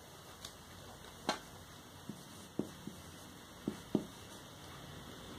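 Marker pen writing on a paper sheet: a handful of short taps and clicks as the tip meets the paper, the loudest about a second in, over a low background hiss.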